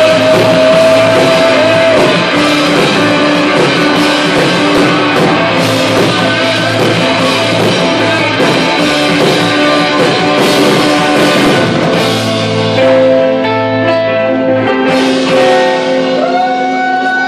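Rock band playing live: electric guitars and drums, loud and full. After about twelve seconds the drumming thins out and held guitar notes ring on as the song draws to its close.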